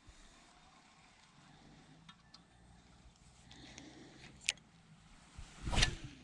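Faint handling noise of a fishing rod and spinning reel during a lure retrieve: scattered small clicks over a low winding hum. There is a sharp click about four and a half seconds in and a louder knock with a rustle near the end.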